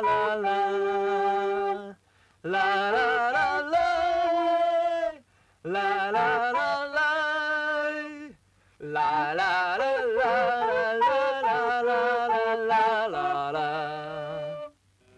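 A voice singing a wordless melody in four phrases broken by short pauses, the pitch wavering.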